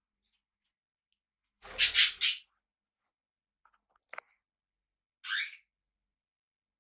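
Pet parrot squawking: three harsh screechy calls in quick succession about two seconds in, then a short click and one more harsh squawk near the end.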